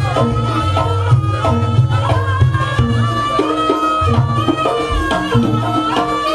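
Traditional Javanese jaranan ensemble music: hand-drum (kendang) patterns over stepping gong-chime notes, with a sustained, slightly bending melody line held above.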